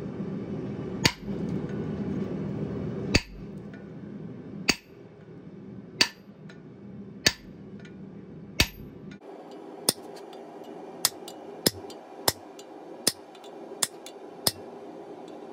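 Blacksmith's hand hammer striking a red-hot mild steel bar on an anvil: six heavy, evenly paced blows about every second and a half, then lighter, quicker blows from about ten seconds in.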